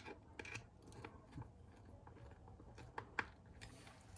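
Faint, scattered light clicks and taps of small parts being handled while screws are set into an RC truck's plastic battery tray, a few sharper ticks about three seconds in.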